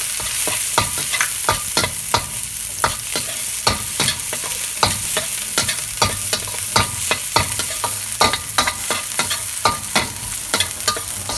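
Chopped garlic and ginger sizzling in olive oil in a stainless steel wok as they are stirred. The stirring utensil scrapes and knocks against the metal pan in quick, irregular clicks, a few a second, over a steady sizzle.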